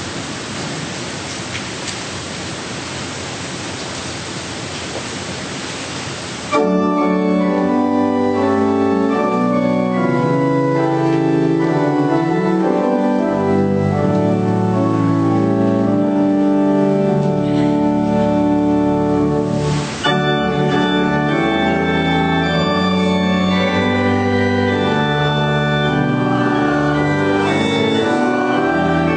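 Steady hiss for about six seconds, then organ music starts abruptly: sustained chords that carry on to the end, with a brief dropout about twenty seconds in.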